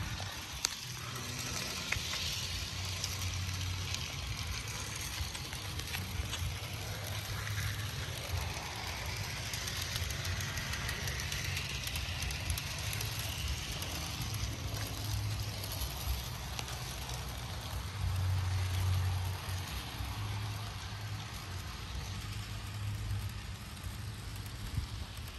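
HO scale model train running along Bachmann E-Z Track: a steady whirring rattle of motor and wheels over a low rumble that swells and fades, loudest about 18 seconds in.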